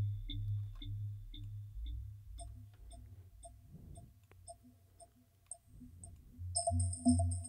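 Output of Ableton Live's Vocoder: faint, pitched electronic blips repeating about twice a second over a low hum. About six and a half seconds in, once the attack is turned down short, it becomes louder and fuller.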